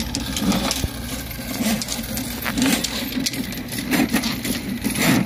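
Electric drum drain snake running, its spinning cable churning and clicking as it is fed down a sewer clean-out to clear a backed-up line.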